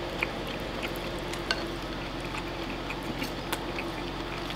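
Person eating oyakodon: soft chewing, with chopsticks clicking against the bowl a few times, over a steady low room hum.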